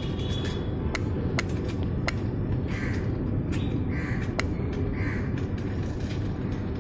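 A crow cawing three times, about a second apart, over a steady low background rumble. Sharp clicks come from washers and nuts going onto a bicycle wheel's axle as the wheel is fitted into the frame.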